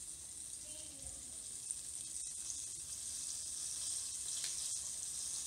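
Breaded trout fillets deep-frying in hot oil in a pot, a steady sizzle.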